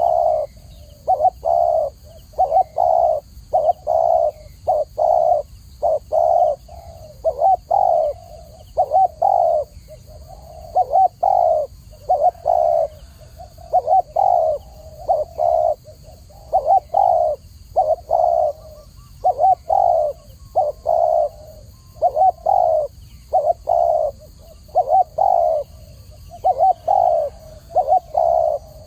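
Spotted dove cooing over and over, its low coos coming in short groups with brief gaps between them, against a faint steady hiss.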